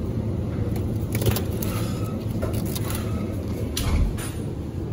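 Steady low rumble of supermarket background noise, with a few short clicks and crinkles from plastic meat packaging being handled. The loudest click comes near the end, as a plastic-wrapped chicken tray is picked up.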